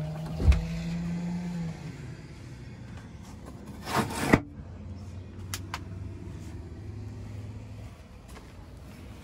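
Camper interior fittings being handled over a steady low hum. A dull thump comes about half a second in. Around four seconds there is a short double scrape and knock as an overhead wooden cabinet's sliding door is moved, followed by a couple of light clicks.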